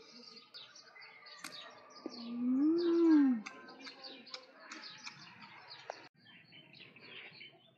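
Small birds chirping over and over. About two seconds in, one loud low drawn-out call rises and then falls in pitch over just over a second.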